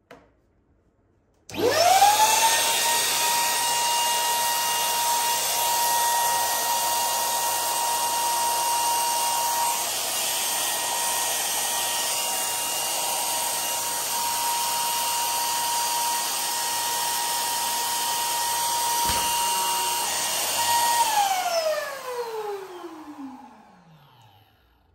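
Electric balloon pump switching on and running steadily, a high motor whine over rushing air as it inflates a squishy toy. A brief low thump comes near the end of the run, then the pump is switched off and the whine falls in pitch as the motor spins down.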